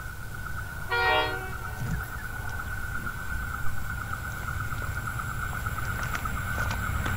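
Diesel locomotive horn sounding one short chord blast about a second in, over a steady low rumble that slowly grows louder as the train draws closer.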